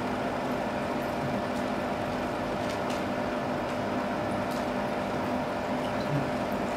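A steady machine hum, with a few faint ticks.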